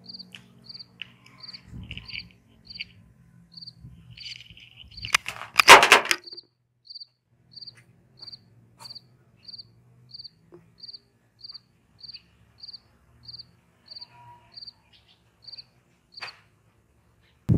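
A cricket chirping steadily, short high chirps at about two a second. About five seconds in, a loud rustle of handling close to the microphone covers it briefly.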